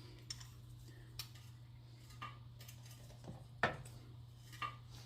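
Scattered sharp metallic clinks of tools or parts being handled, half a dozen separate knocks with the loudest about three and a half seconds in, over a steady low hum.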